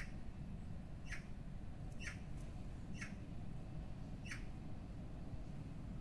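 A small bird chirping short, high notes about once a second, five times, over a low, steady rumble.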